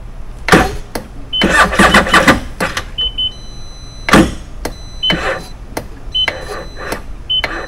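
Kawasaki jet ski's electric starter cranking the engine in several short bursts without it catching, with short high electronic beeps between the tries. The engine is hard to start, which the owner puts down to water that got inside, fuel not yet reaching the system and a weak battery.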